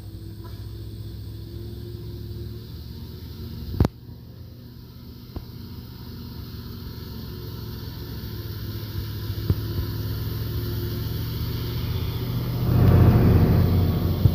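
Diesel engines of a Mitsubishi Fuso Super Great dump truck and a Fuso tanker truck running as they pass close by, a steady low drone that grows louder, loudest near the end. A sharp click about four seconds in.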